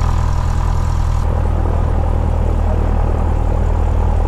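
Light single-engine airplane's piston engine and propeller running steadily, heard from inside the cockpit as a loud, even low drone.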